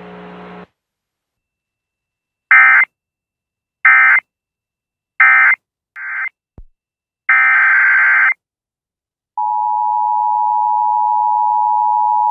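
Emergency Alert System data bursts: three short, identical buzzy digital bursts, a brief clipped one, then a longer burst of about a second. About nine seconds in, the steady two-tone EAS attention signal starts and holds.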